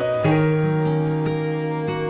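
Instrumental karaoke backing track with no voice: sustained chords that change about a quarter of a second in and again near the end.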